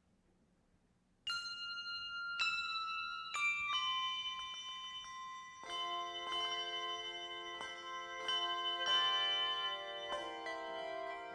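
Bell-toned music: after a moment of near silence, single struck notes ring out one after another, each left to ring on. From about five seconds in, lower notes join and build into sustained chords.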